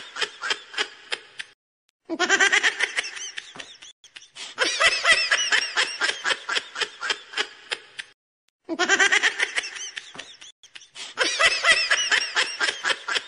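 A person's laughter, fast repeated ha-ha pulses in five stretches, each broken off abruptly by a short silence, like the same laugh clip repeated.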